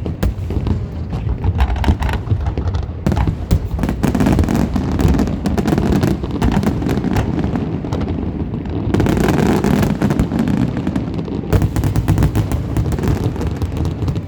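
Aerial fireworks bursting in a rapid, continuous barrage of many overlapping bangs, loud throughout with no pause.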